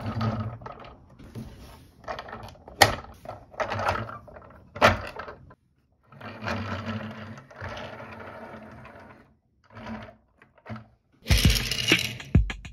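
Plastic Tomica Okatazuke Convoy toy truck rolling on a tabletop, its wheels giving a steady whirring buzz. Several sharp plastic clacks follow as the truck's clear trailer lid is opened, then more rolling. A louder rattling clatter comes near the end as a die-cast minicar is set down on the table.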